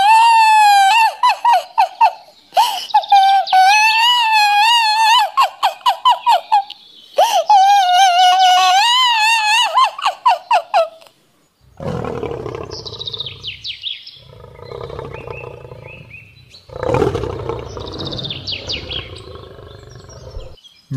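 High-pitched, wavering cartoon wailing of a crying duck in three long phrases. After a short pause, a lion roars twice, long and rough.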